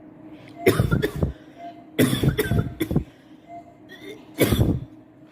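A person sneezing again and again: a series of sudden, loud sneezes, with a quick cluster of three or four in the middle.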